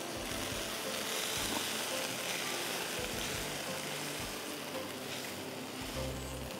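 Hot mutton keema sizzling in a frying pan as it is tossed and then pushed out into a serving bowl with a spatula: a steady hiss that eases after about four seconds, over soft background music.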